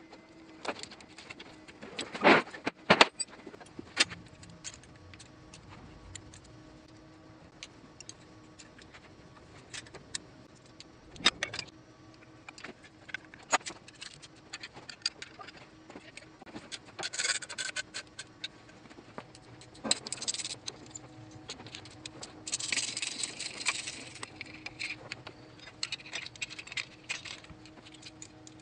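Hand tools and metal fittings clinking and clicking as hoses, clips and bolts in an engine bay are worked loose by hand, including an open-end wrench on a bolt. The sharp clicks are scattered, the loudest a couple of seconds in, with stretches of scraping and rustling later on over a faint steady hum.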